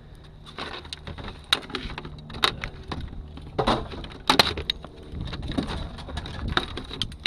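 Irregular cracks, snaps and crunches of broken plastic debris from shot-up appliances being moved about, the sharpest snap about four seconds in.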